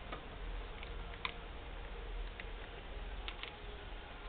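A few faint, scattered clicks and light taps from popsicle sticks and a hot glue gun being handled on a tabletop, over a low steady hum.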